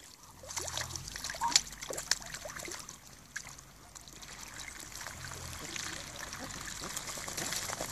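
Muscovy ducks bathing and dabbling their bills in a shallow puddle: water splashing, dribbling and spattering, with a sharp splash about a second and a half in.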